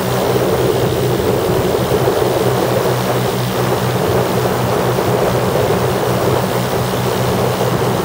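Lazair ultralight's twin engines and propellers running steadily in cruise, heard from the open cockpit with wind rushing over the microphone.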